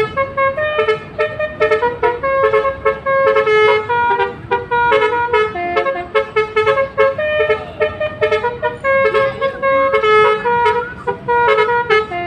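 Basuri V3 multi-tone telolet horn playing a tune in a quick run of short notes.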